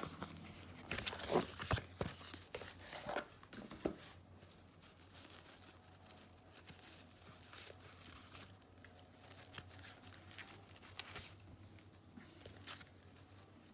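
Paper-like rustling and crinkling from handling cards or their packaging, with several sharp rustles and clicks in the first four seconds, then only faint, scattered rustles.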